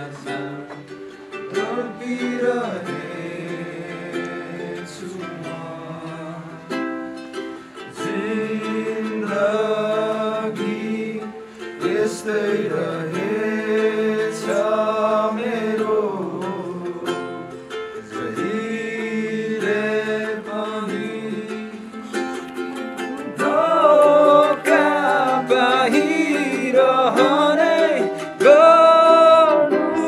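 A song with ukulele accompaniment and a sung vocal line, the music getting louder in the last several seconds.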